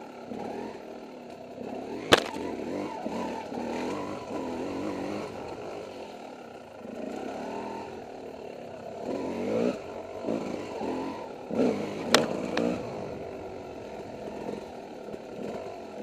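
Yamaha dirt bike engine heard from on the bike, its revs rising and falling with the throttle. Two sharp knocks cut in, about two seconds in and about twelve seconds in.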